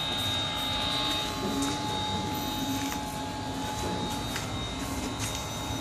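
SK450 X8 octocopter's eight brushless motors and propellers running: a steady whir with a thin, high, constant whine.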